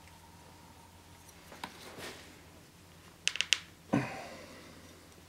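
Metal sword fittings of a wakizashi clicking against each other as the hilt is assembled: a few faint small clicks, then a quick run of sharp metallic clicks about three seconds in and a knock with a brief ring just after.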